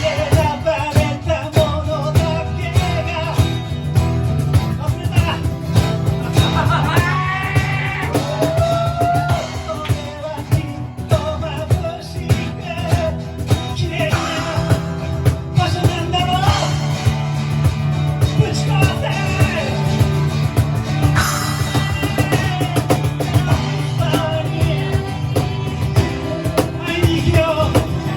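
A rock band playing with a singer: a wavering sung line over guitar, a steady bass and a regular drum beat.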